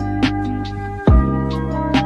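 Background music: sustained electronic-sounding chords over a bass line, with a drum hit about every second.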